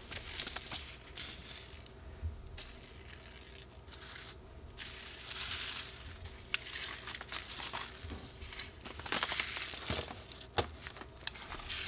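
Paper seed packets rustling and crinkling as hands shuffle and sort through them on a countertop, with many small irregular flicks and taps of paper.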